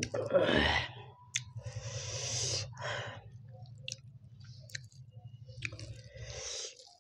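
Close-miked mouth sounds of chewing a mouthful of rice and curry, in irregular wet bursts, with the soft squish of fingers mixing rice and curry on the plate. A steady low hum runs underneath and stops shortly before the end.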